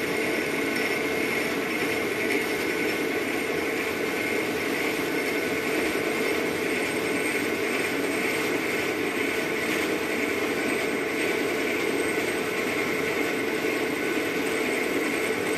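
Metal lathe running while a carbide boring tool cuts the bore of a cast phosphor-bronze bushing: an even machine hum with a steady high whine.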